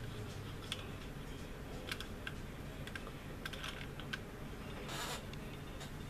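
Scattered light clicks and taps of a plastic model aircraft being handled, with a short rustle about five seconds in.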